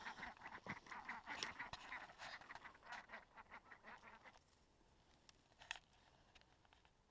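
Domestic ducks quacking and chattering in quick, soft calls that stop about four seconds in. One sharp click follows near the end.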